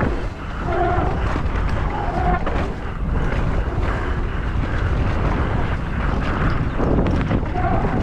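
Heavy wind buffeting on a mountain bike rider's camera microphone during a fast descent, with a dense run of small rattles and knocks from the bike underneath. A few brief pitched sounds cut through about a second, two seconds and seven and a half seconds in.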